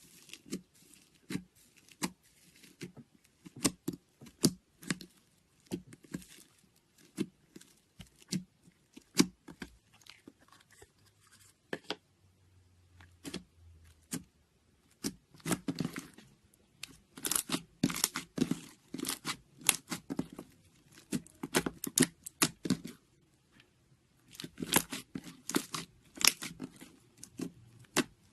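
Sticky slime being squished and stretched, giving irregular wet crackles and pops that come in denser runs in the second half.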